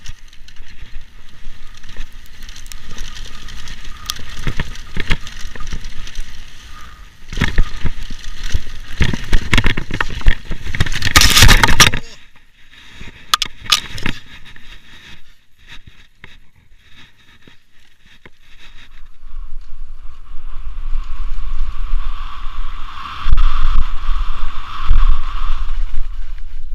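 Downhill mountain bike descending a rough dirt trail: tyres rolling and the bike rattling and clicking over bumps. About eleven seconds in comes a loud clattering burst as the rider crashes, then a quiet stretch with a few clicks, before steady riding noise picks up again.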